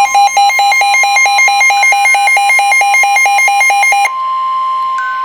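Emergency alert tones from a weather radio warning broadcast. A two-pitch electronic warble alternates rapidly, about five times a second, then about four seconds in switches to a single steady alarm tone, the weather radio warning alarm tone.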